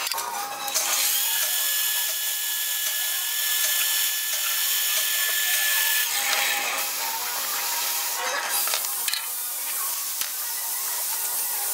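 Small bench metal lathe starting up about a second in and running with a brass rod spinning in its chuck, a steady motor whine with a high hiss, then slowing and stopping about nine seconds in.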